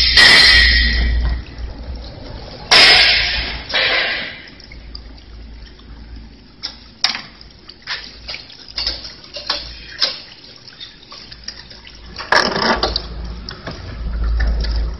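Light metallic clicks and knocks from hands working the wire and parts of a chain link fence weaving machine, broken by three loud hissing rushes, the longest at the start and another about three seconds in.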